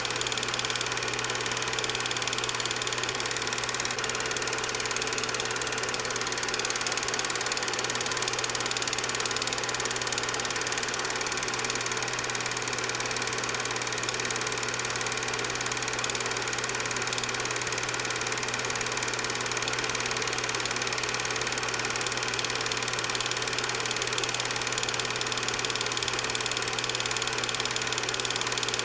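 8mm film projector running: a steady motor hum with a mechanical whir that does not change.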